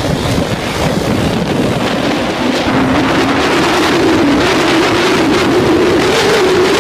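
Motocross dirt bike engine running under throttle, its pitch climbing from about two and a half seconds in as the bike speeds up, with wind buffeting the microphone.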